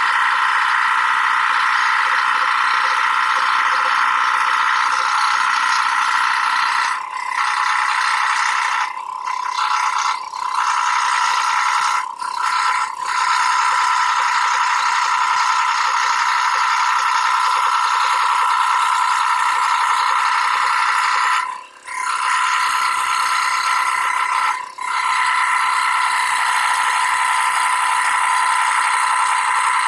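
Scroll saw running with a steady rattling buzz as the blade reciprocates, dipping briefly several times.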